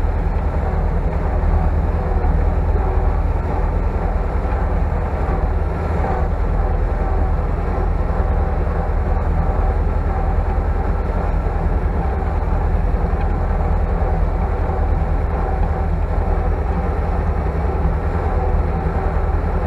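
Tractor engine running steadily under way, heard from inside the cab as a constant low drone.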